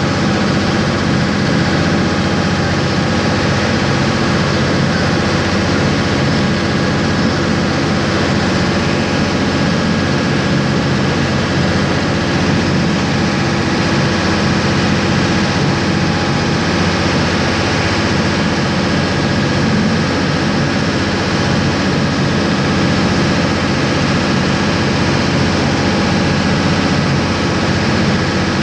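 A ferryboat's engine running steadily underway, a deep even drone with water rushing and churning in the wake.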